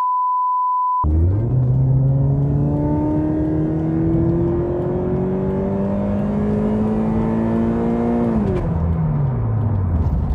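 A one-second 1 kHz test-tone bleep, then the Toyota GT86's 2.0-litre boxer four-cylinder engine accelerating hard through one gear, heard from inside the cabin. Its pitch climbs steadily for about seven seconds, then the revs fall away when the throttle is lifted near the end.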